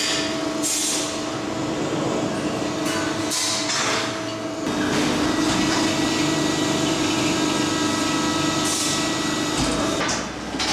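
Maru Kikai 500-ton, 6 m press brake running in a sheet-metal shop: a steady machine hum that grows louder about halfway through, with three short hisses along the way.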